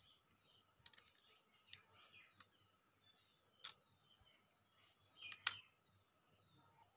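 A few light metallic clicks as new disc brake pads are fitted by hand into a motorcycle's front brake caliper, the loudest about five and a half seconds in.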